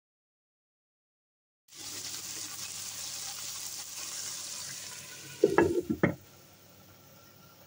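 Ground meat with onions and spices sizzling in a frying pan, starting after a short silence. About five and a half seconds in, a glass lid clatters down onto the pan in two knocks, and the sizzle goes on much quieter under the closed lid.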